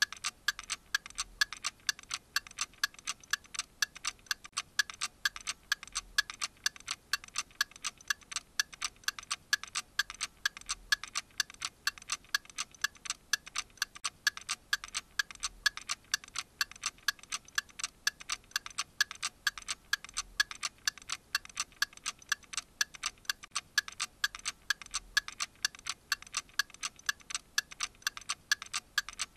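Steady clock-like ticking, several sharp ticks a second in an even rhythm, with a faint low pulse every few seconds underneath.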